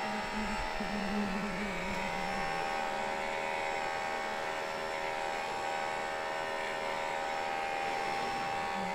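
A Japanese honey bee colony humming steadily: the massed wing buzz of bees clustered over exposed comb.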